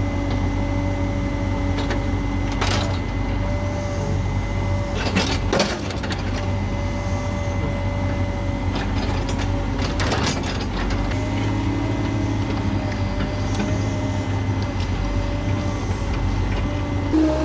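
Heavy construction machine's engine running steadily, with a few sharp clanks. The engine note steps up near the end.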